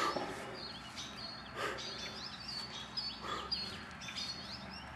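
Songbird chirping outdoors: short, high whistled notes repeated over and over. Two brief rustling noises cut in, about one and a half and three and a half seconds in.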